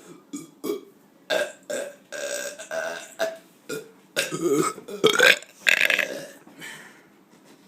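A man burping again and again on purpose: a string of separate belches, some short and some longer, one after another.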